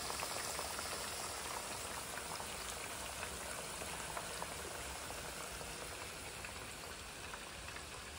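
Breaded swordfish pieces deep-frying in hot oil: a steady bubbling sizzle with scattered small crackles.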